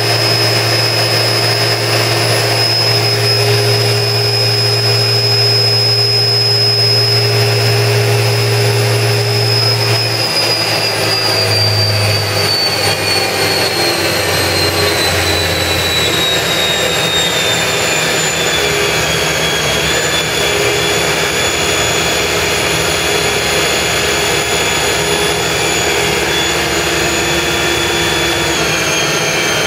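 Fadal 3016 vertical machining center's spindle running with a loud, steady high-pitched whine over a low hum. From about ten seconds in, the whine falls slowly in pitch and the hum steps lower as the spindle slows, settling at a lower speed, with another slight drop near the end.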